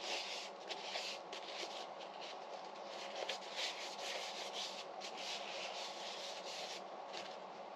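Paper towel rubbing and rustling over a freshly oiled wooden knife handle and blade, wiping off the excess tung oil in a run of short, irregular strokes.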